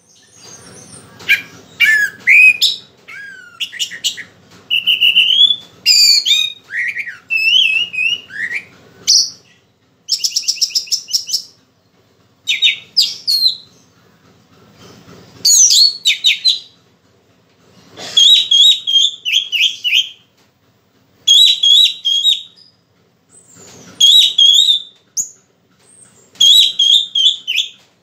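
Orange-headed thrush (anis merah) singing in short, varied phrases with pauses between them, with a fast trill about ten seconds in and one wavering phrase repeated again and again in the second half. The bird is in full song while still in moult.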